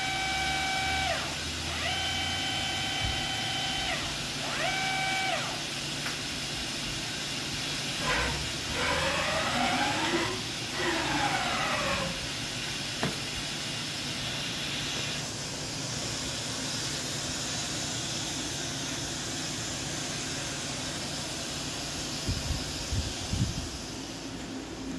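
Hurco VMX30 CNC vertical machining center running through three short moves, each an electric servo whine that rises, holds steady and falls, in the first five seconds. About eight seconds in comes a longer stretch of whines gliding up and down against each other. Everything sits over a steady machine hiss, with a few knocks near the end.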